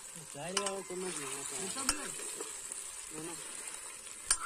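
Fish pieces sizzling in hot oil in a steel karahi (wok) while being stirred with a metal ladle, a steady high sizzle with three sharp clicks of the ladle against the pan.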